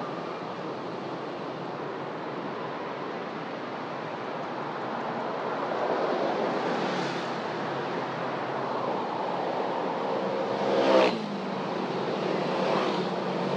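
Street traffic with vehicles passing. One vehicle passes close about eleven seconds in, the loudest moment, its engine note dropping in pitch as it goes by.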